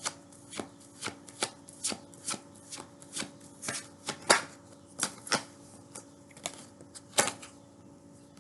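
Tarot cards shuffled by hand: a run of short card slaps, two or three a second, with the loudest about four seconds in and another near seven seconds.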